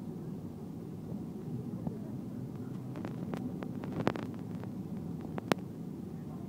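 Steady low rumble inside the cabin of a Boeing 747-400 rolling out on the runway after touchdown, with scattered clicks and knocks from about halfway through. The sharpest click comes about five and a half seconds in.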